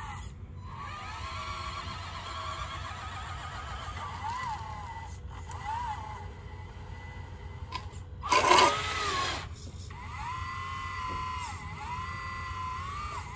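Whining electric drive motors of a 1:14 scale RC Caterpillar 988 wheel loader, running in spells with the pitch rising and falling as it speeds up and slows. About eight seconds in, a loud rush of noise lasting about a second stands out as the loudest sound.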